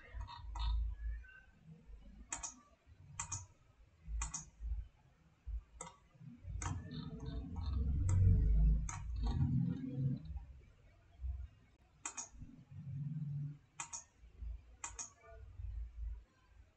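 Computer mouse clicking: single sharp clicks, about one every second or so at irregular spacing, some in quick pairs. A low rumble swells about halfway through and is the loudest sound.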